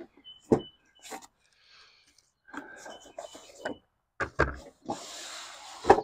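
Cardboard box and packing being handled: rustling and rubbing of cardboard and foam inserts as they are pulled out, with several sharp knocks, the loudest about four seconds in and at the end.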